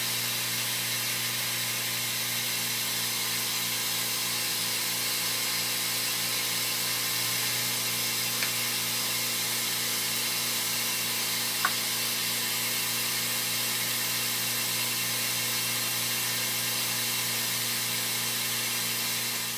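Airbrush spraying paint onto a foam popper head: a steady, unbroken hiss of air over a low motor hum from the airbrush compressor, with two faint ticks in the middle, cutting off at the very end.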